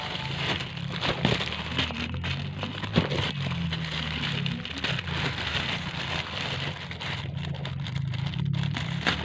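Crackling and rustling of packaging being handled, with scattered clicks, over a low steady hum.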